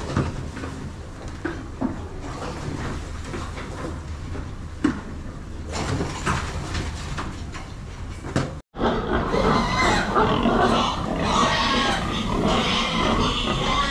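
Pigs grunting. First piglets in a pen, with a few light knocks. Then, after a brief dropout a little past halfway, a pen of grown pigs grunts louder and more densely.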